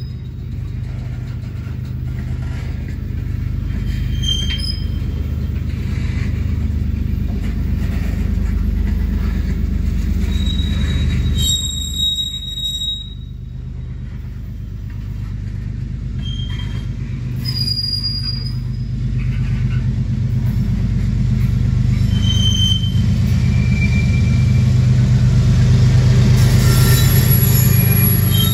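Loaded freight train of tank cars rolling past, heard from inside a car: a steady low rumble, with short high wheel squeals now and then. The rumble grows louder near the end.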